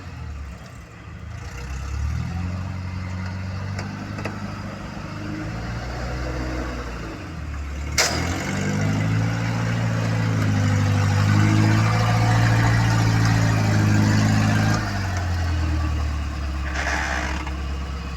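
Off-road 4x4 vehicle engine running and revving, its pitch rising and falling. It is louder and higher in the middle stretch, then eases back a few seconds before the end. A single sharp knock comes about eight seconds in.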